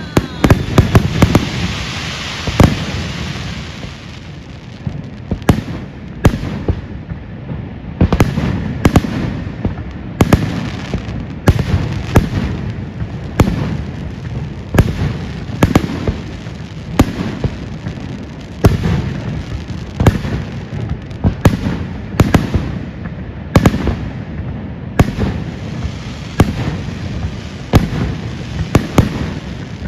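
Fireworks show: aerial shells bursting in a continuing series of sharp bangs, about one a second, irregularly spaced.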